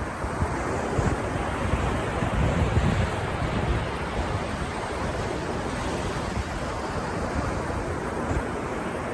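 Ocean surf washing onto a beach in a continuous rush, a little stronger about a second to four seconds in, with some wind rumbling on the microphone.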